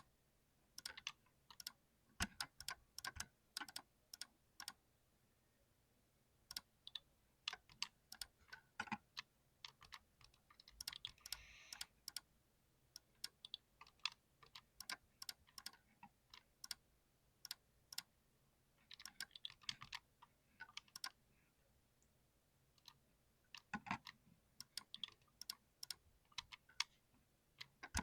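Typing on an ergonomic mechanical keyboard with TTC switches: runs of quick key clicks, broken by short pauses.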